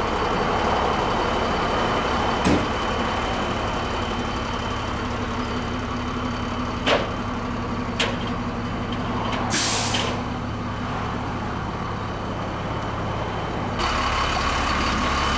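Flatbed tow truck's engine idling steadily, with a few sharp clicks and a short burst of hissing air about ten seconds in.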